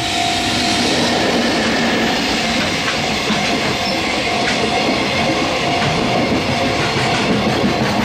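JR Freight EF65 electric locomotive passing close by, followed by a long train of container wagons running past. A level-crossing warning bell keeps ringing faintly under the train noise.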